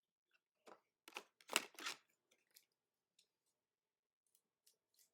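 Trading cards and plastic sleeves being handled: a few soft scrapes and rustles in the first two seconds, then faint scattered ticks.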